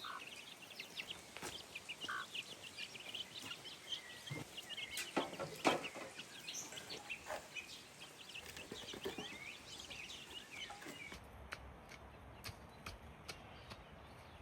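Chickens clucking among many short, high chirps, with a few louder calls about five to six seconds in; the sound turns quieter after about eleven seconds.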